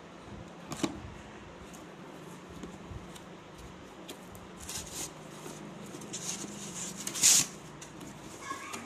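Cardboard packaging being handled and opened: scattered rustles and scrapes of cardboard, busier in the second half, with one loud rustle about seven seconds in. A steady low hum runs underneath.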